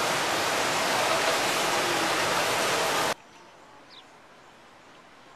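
Heavy rain, a steady loud hiss, which cuts off abruptly about three seconds in. A much quieter outdoor background follows, with one faint short chirp.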